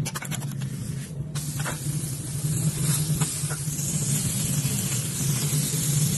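Beef burger patty sizzling on a hot steel flat-top griddle, a steady hiss that grows louder about a second in.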